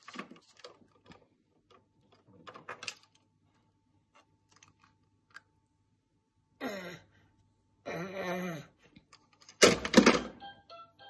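Light plastic clicks and taps from a toddler handling toys on a windowsill. Three short voice-like calls follow in the second half, the last and loudest near the end.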